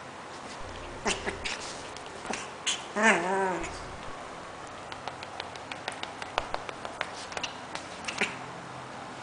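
A Pomeranian making one short, whiny vocal call with a falling pitch about three seconds in. Scattered small clicks and taps follow.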